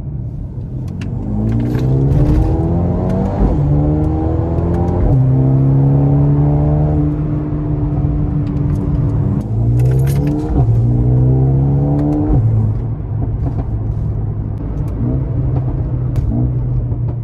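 Mercedes-AMG A35's turbocharged four-cylinder engine heard from inside the cabin, pulling hard with its pitch climbing and then dropping sharply at several upshifts. It holds a steady note through the middle, and a lower one near the end.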